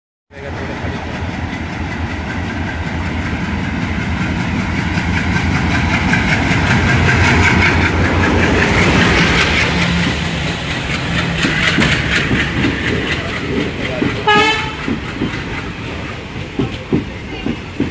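WDM3D diesel locomotive running past at speed, its engine rumble building up and then fading as the coaches follow. A brief high toot comes about fourteen seconds in, then the coach wheels knock over the rail joints.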